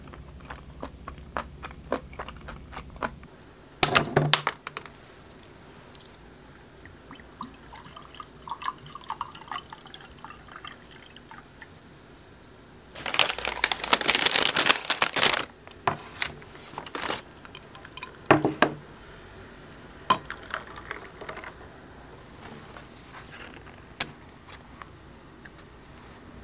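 Small tableware handling sounds: sharp clicks and taps of a spoon and dishes, then about two and a half seconds of liquid, bottled milk tea, being poured into a glass around the middle, followed by a few more sharp clicks.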